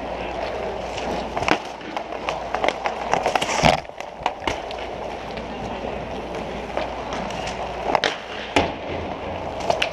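Inline skate wheels rolling and scraping on a plastic sport-court floor, with several sharp clacks of hockey sticks and puck, the loudest a little over a third of the way in.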